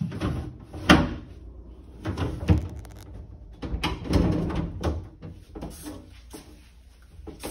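Plastic refrigerator crisper drawers and shelves being handled and shifted, with rattling and sharp plastic clacks. The loudest clacks come about a second in and again about two and a half seconds in.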